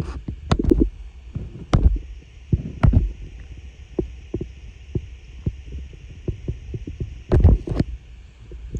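Irregular dull thumps and knocks, a few a second at times, with a heavier cluster about seven and a half seconds in.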